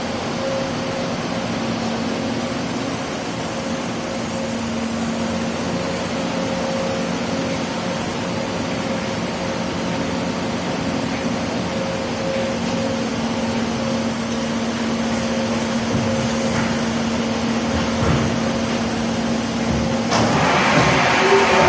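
Cincinnati Magnum HPC-1000XT horizontal machining center running: a steady mechanical hum with two steady tones over a broad noise. About twenty seconds in, a louder hissing rush sets in.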